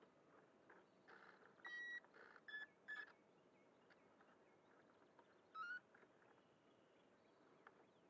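Short electronic beeps from the UMX Waco's receiver and speed-control board as the flight battery is plugged in: one longer beep about two seconds in, two quick shorter ones after it, and a short rising chirp a few seconds later.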